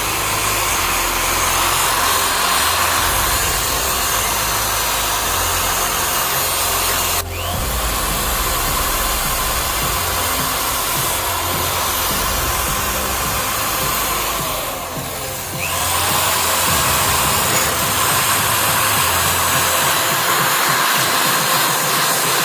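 Electric power tool running steadily against the rusty steel of a pair of grass shears, abrading it with a harsh, even grinding noise. The contact eases briefly about a third of the way in and again for about a second two-thirds of the way in.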